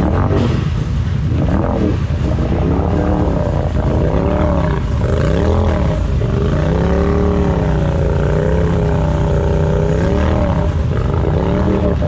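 Engine revved up and down over and over, about once a second, then held at a higher, wavering pitch for a few seconds past the middle: a car stuck in a mud hole being driven while it is pushed.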